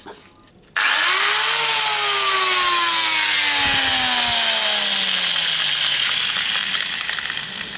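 Angle grinder with a twisted-knot wire cup brush starting suddenly about a second in, its whine rising briefly and then falling steadily as the brush spins down, under a loud hiss that fades near the end.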